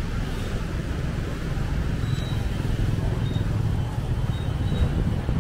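Outdoor ambience: a steady low rumble, with a few faint, short high-pitched tones in the second half.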